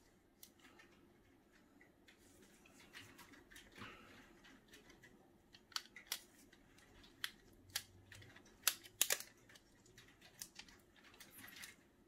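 Faint handling noise from a laptop hard drive being worked on with gloved fingers: scattered small clicks and light crinkling as tape is picked at and peeled off the drive. The clicks come more often in the second half.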